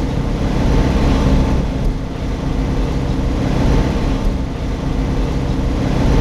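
Motorhome engine running steadily with road noise, heard from inside the cab while it pulls uphill on a mountain road.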